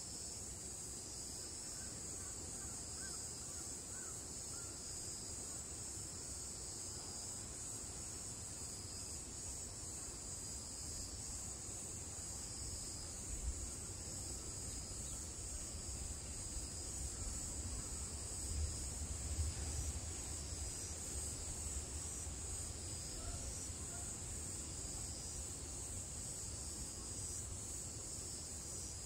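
Cicadas droning, a steady high buzz with a faint pulsing under it. Low wind rumble on the microphone gusts up around the middle.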